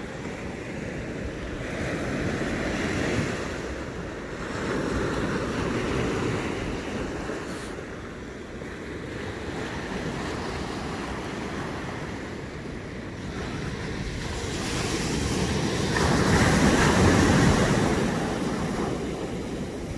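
Ocean surf breaking and washing up a sandy beach, swelling and fading with each wave, the loudest surge near the end.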